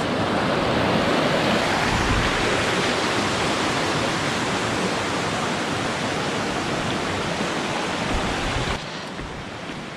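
Steady rush of a fast-flowing creek, the water running strong, turning suddenly quieter about nine seconds in.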